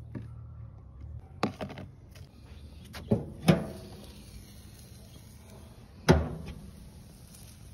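A few knocks and clatters, then the metal lid of a gas grill banging shut about six seconds in, the loudest sound.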